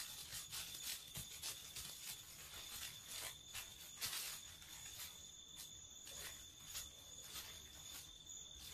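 Faint night bush ambience: a steady high trill typical of a cricket or similar night insect, with irregular soft clicks and scratches scattered through it.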